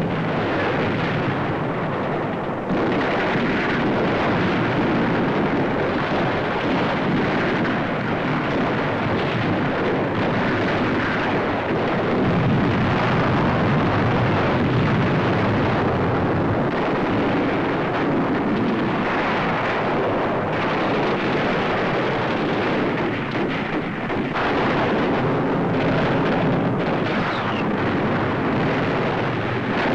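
Continuous battle noise of explosions and gunfire from an old film soundtrack, blending into one steady, dense din that grows a little louder about three seconds in.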